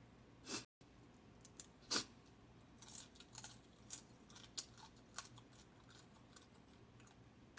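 Someone eating blue crab: scattered sharp cracks and clicks of crab shell with chewing, the loudest about two seconds in. A brief dropout to dead silence comes just before the one-second mark.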